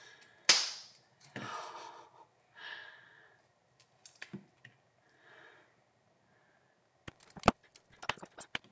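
Scissors snipping through balloon rubber on a frozen water balloon, with one sharp snip about half a second in. Soft rustling and a breath follow, then a quick run of small clicks and taps near the end as the rubber is handled and pulled off the ice.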